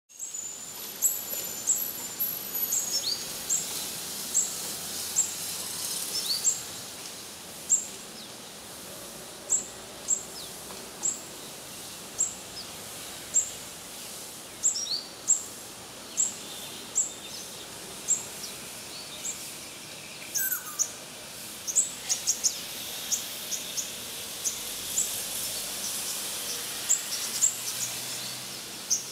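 Young olive-backed sunbird calling: short, sharp, very high chirps, each a quick downward flick, repeated irregularly about once a second and coming faster in the last third, over a steady background hiss.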